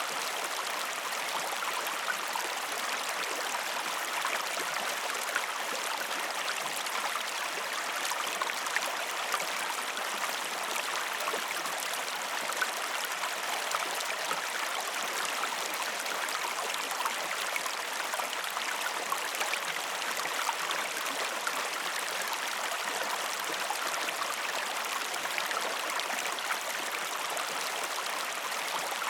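Mountain stream cascading over rocks: a steady rush of water with fine splashing and gurgling, even throughout, with no birdsong.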